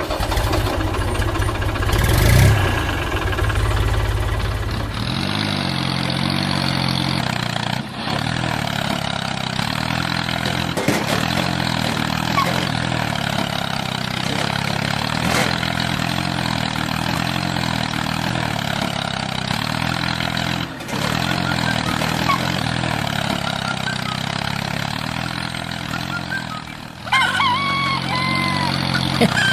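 Steady running of a small engine-like motor, its hum shifting slightly in pitch now and then. About two seconds before the end comes a short warbling call, rising and falling.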